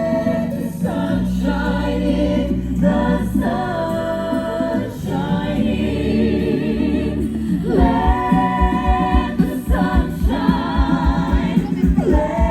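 Live stage show music: several singers holding long notes with vibrato over a backing track, with a steady drum beat coming in about two-thirds of the way through.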